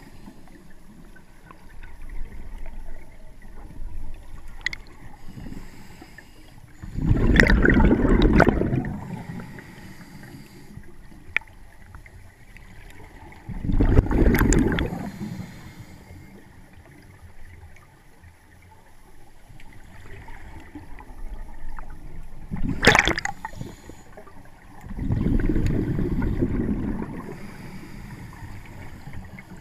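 Scuba diver's exhaled bubbles from the regulator, recorded underwater: three gurgling bursts several seconds apart, one per breath, with a quiet hiss between them. A single sharp click comes between the second and third bursts.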